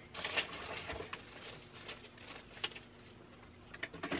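Rummaging and handling small objects: rustling in the first second, then a few light clicks and knocks.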